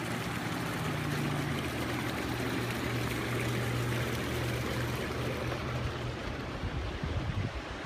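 Hot tub jets churning the water, with a steady low hum from the tub's pump motor. Near the end, wind gusts on the microphone.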